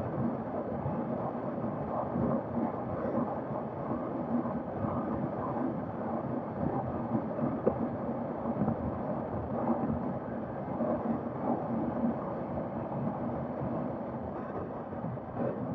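Wind rushing and buffeting over the microphone of a camera on a KTM RC 390 at highway speed, with the bike's single-cylinder engine running underneath.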